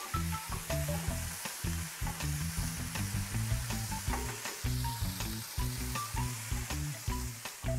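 Olives, sliced garlic and cherry tomatoes sizzling in a frying pan, stirred with a spatula that clicks and scrapes against the pan now and then. Music plays underneath.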